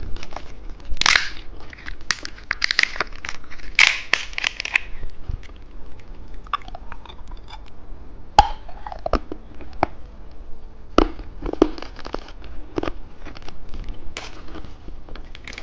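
Close-miked crunching and chewing of a hard-candy lollipop: dense crackly bites in the first few seconds, then scattered sharp clicks and mouth sounds.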